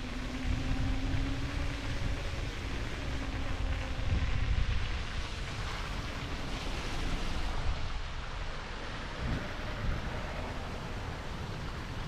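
Wind rumbling on the action-camera microphone over steady city street traffic noise, with a faint low hum in the first few seconds.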